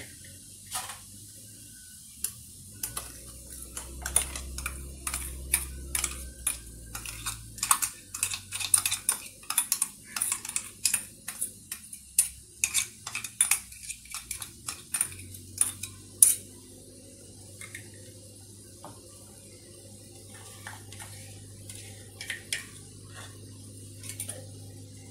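A metal spoon scraping and clinking against a stainless steel mixer jar as thick ground coconut paste is knocked out of it. The clinks come quickly in the middle stretch, end with one loud knock, and then only a few light ticks follow.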